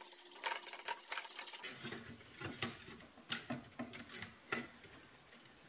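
A brush scrubbing the 1915 Universal toaster's sheet-metal bottom plate in quick, scratchy strokes, followed by light clinks and knocks of the metal parts as they are handled and fitted together.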